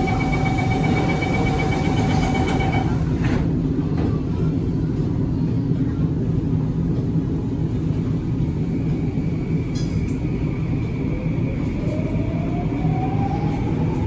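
Singapore MRT train running with a steady low rumble. A steady whine stops about three seconds in, and a motor whine rises in pitch over the last few seconds as the train picks up speed.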